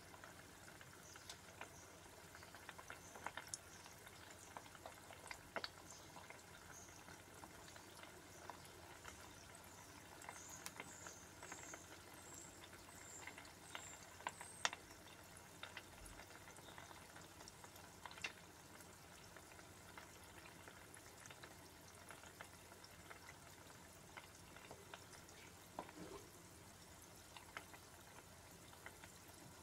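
Faint sizzling and bubbling of hot oil in an electric deep fryer as a frozen breaded beef croquette fries in the basket, with scattered small pops and ticks.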